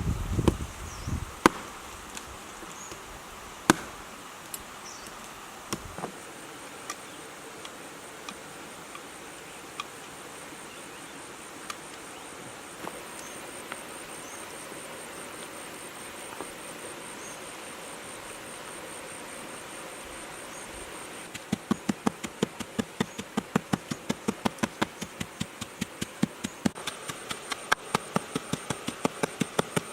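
A knife chopping on a wooden board: a few separate knocks at first, then from about two-thirds of the way in a fast, even run of chops, about three or four a second. Behind it, insects keep up a steady high buzz.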